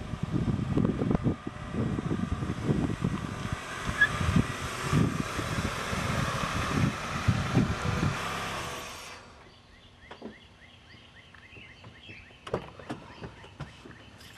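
SUV pulling into a driveway, its engine and tyres under heavy wind buffeting on the microphone. About nine seconds in this stops abruptly, leaving quieter ambience with faint short high chirps and a few clicks.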